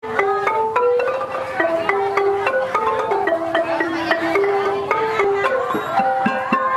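Khmer pinpeat ensemble music led by roneat xylophones. Wooden bars are struck with mallets in a quick, running melody of ringing notes that steps up and down in pitch.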